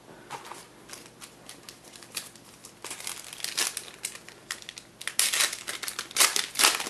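Crinkling and crackling of trading card packaging being handled, in quick sharp crackles that grow louder and denser in the last two seconds.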